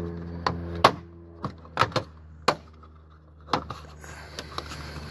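Plastic handle-pull covers on a Tesla Model S trunk lid being handled and snapped on their tabs: about ten sharp, irregular clicks and knocks, the loudest about a second in, over a steady low hum.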